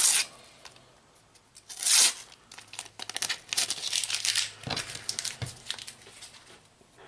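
Paper Panini sticker packet being torn open and its wrapper crinkled: short tearing and crackling rasps, the loudest about two seconds in, with a busy run of crackles a little later.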